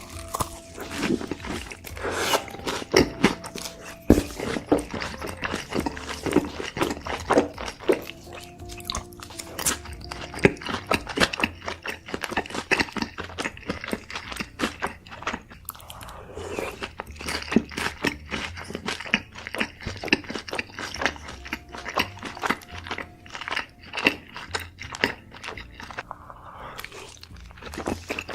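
Close-miked mukbang eating: repeated crunchy bites and wet chewing of sauce-smothered food, with soft background music.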